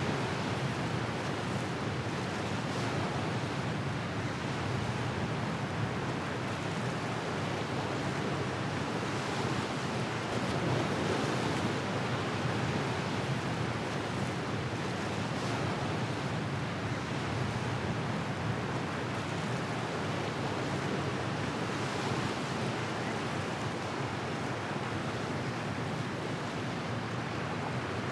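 Surf and wind at sea: a steady, even rush of waves with no distinct events.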